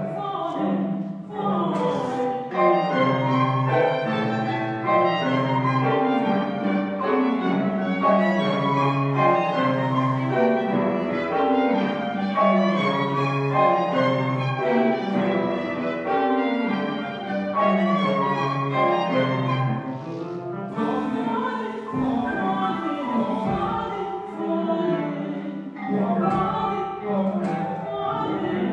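Live contemporary chamber music: bowed strings (violins, viola, cello) playing over a low figure that repeats about once a second. A band of hiss comes in for a short while about twenty seconds in.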